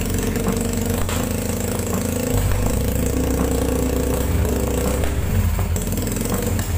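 Small four-stroke single-cylinder Cub engine of a custom BMX-frame minibike running steadily through its custom-built exhaust.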